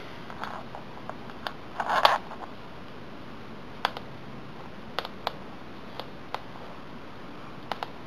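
Handling noise from a yellow micro-USB cable being lifted and dropped on a laminate floor: scattered light clicks and taps, with a louder rustle about two seconds in.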